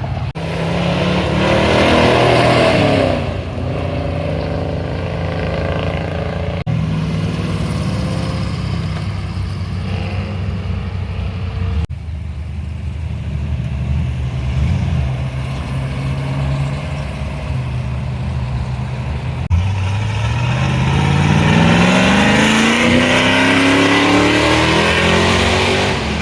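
Car engine running, with a brief burst of revs about two seconds in, then a long, steady climb in engine speed over the last six seconds or so.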